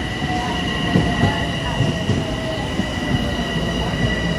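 Metro-North M7 electric commuter train running at the station, with a steady high-pitched whine in several tones over a low rumble and scattered low knocks.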